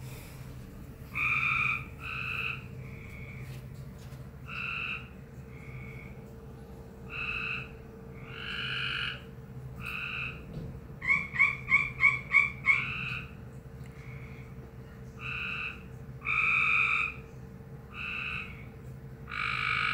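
A frog calling repeatedly, with short calls roughly once a second at uneven spacing. About eleven seconds in comes a fast run of about seven loud, clipped notes, the loudest part: an unusual call from this frog.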